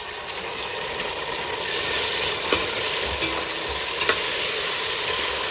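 Onions and freshly added tomatoes sizzling in oil and ghee while being stirred in the pan; the sizzle grows a little louder in the first couple of seconds, with a few sharp clicks of the utensil against the pan.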